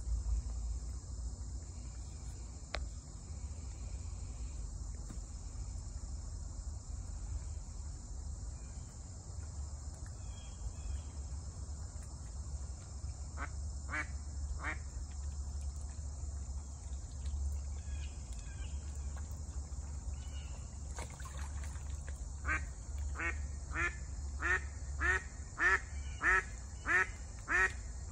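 A duck quacking: two quacks about halfway through, then a steady run of louder quacks, about one and a half a second, through the last part, over a low rumble of wind.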